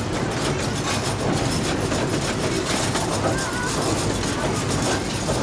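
A 15-inch gauge miniature passenger train running steadily, heard from aboard one of its cars: wheels rolling and clattering on the track.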